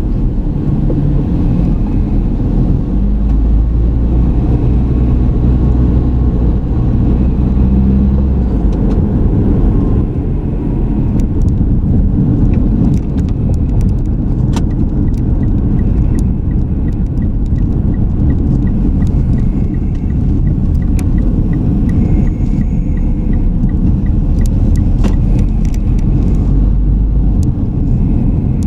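Car driving, its low road and engine rumble recorded from a car-mounted camera. A faint, even ticking runs for about ten seconds midway.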